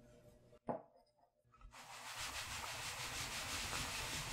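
Starch-coated tapioca pearl dough balls rolling and rattling together in a tray of tapioca starch as the tray is shaken, a rapid dry rustling. A single knock comes just before it, about a second in.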